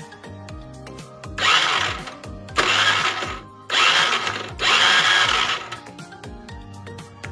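Honda Vario 110's electric starter spinning the engine in four bursts of about a second each, with the spark plug out and held against the engine to check for spark. Background music plays throughout.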